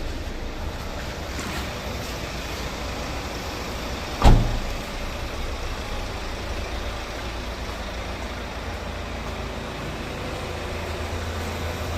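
Hyundai Santa Fe's 2.0-litre diesel engine idling steadily, with one sharp thump about four seconds in.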